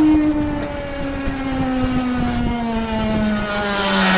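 Electric scooter hub motor whining, its pitch falling slowly as it slows, with irregular knocking underneath: a sudden abnormal noise that drags like braking though the brake is not applied, which the owner takes for poor contact in the motor's phase wires. A hiss of noise rises near the end.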